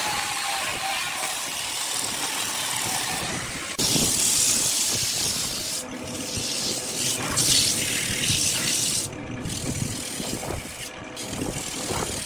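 Wood lathe spinning a wooden vase while it is sanded, first with a small power sanding disc and then with sandpaper held by hand: a steady hiss of abrasive on wood. It gets louder and brighter about four seconds in, with a few brief drops near the end.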